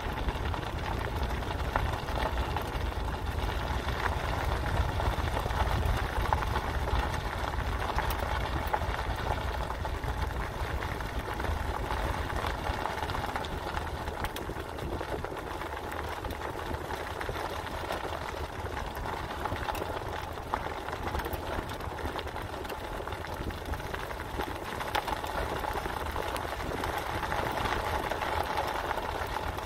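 Steady car cabin noise while driving slowly: engine running and tyres rolling over a gravel road, a low rumble with many small crackles of gravel.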